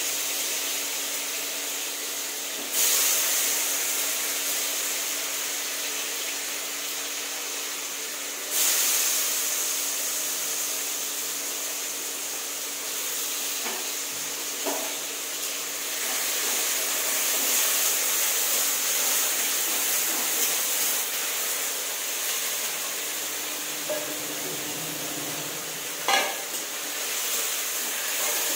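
Paneer cubes frying in hot oil in a pan: a steady sizzle that jumps louder about three seconds in and again near nine seconds. A few short knocks against the pan come around the middle and near the end.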